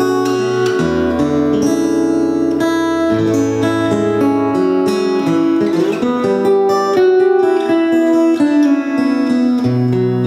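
A 2017 Martin D-35 E steel-string dreadnought acoustic guitar played solo, with picked melody notes over held bass notes.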